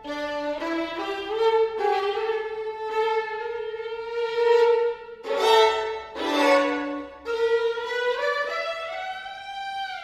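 Two violins playing together: held notes in two voices, sharply bowed accents in the middle, and a slow upward slide in pitch near the end.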